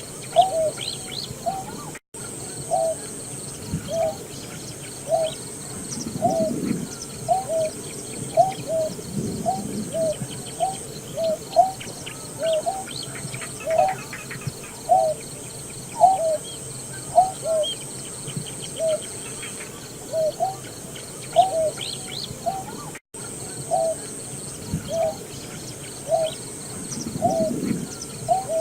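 Greater painted-snipe calling: a steady series of short low hooting notes, each a quick double, about one a second. The calling cuts out for an instant twice.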